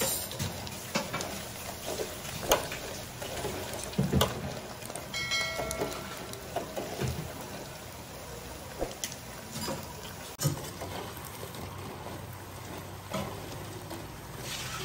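Battered mussels deep-frying in hot oil in a deep fryer: a steady sizzle with scattered pops and crackles, and occasional clinks of a metal skimmer in the oil.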